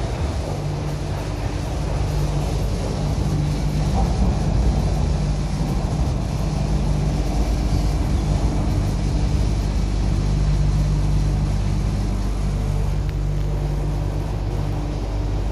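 Interior running noise of an MTR Kwun Tong Line Q-Train in motion, heard inside the carriage: a steady rumble with a low hum that holds level throughout.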